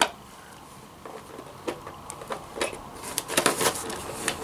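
Small clicks and crinkles of plastic box packaging being handled as an action figure is worked loose from the ties holding it in. Sparse at first, with a busier run of clicks about three seconds in.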